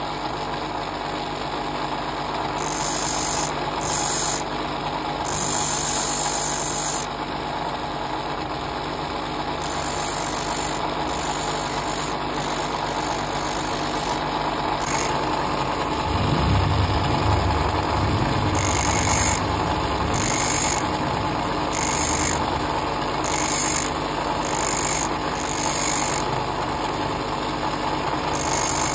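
Grinder motor running steadily with its abrasive wheel spinning, while a steel twist drill bit is pressed against it in repeated short touches, each a spell of high grinding hiss, to sharpen the bit's tip.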